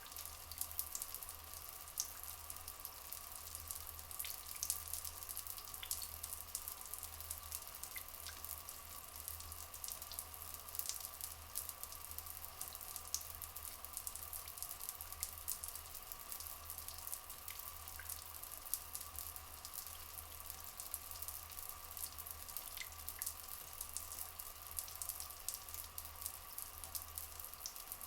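Rainforest ambience of running and dripping water: a steady crackling hiss full of small drips, with a few faint short chirps.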